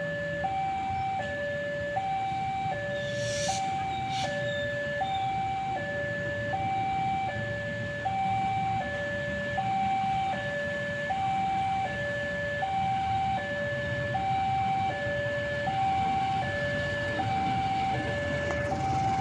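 Electronic railway level-crossing alarm sounding a steady two-tone signal, a higher and a lower tone alternating about every three-quarters of a second, warning of a train. Under it runs the low rumble of an approaching diesel locomotive.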